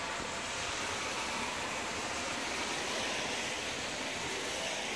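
Steady rushing hiss of a freight train's wheels on the rails, heard at a distance as the train moves away.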